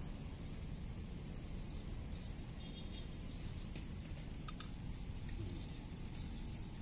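Outdoor ambience: a steady low rumble with a few brief, faint high chirps like birds. A few sharp little clicks come in the second half as the hook and the spinning rod and reel are handled.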